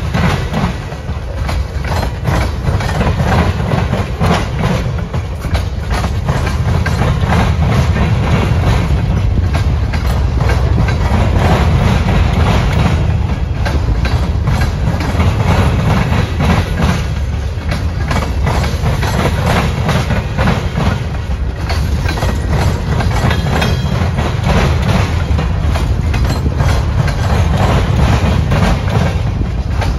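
Freight train of tank cars and covered hoppers rolling past close by: a loud, steady low rumble of steel wheels on rail, with continual clicking and clacking as the wheels pass over the track.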